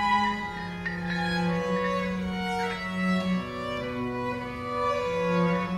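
Background music: bowed strings playing slow, long held notes that change pitch every second or so.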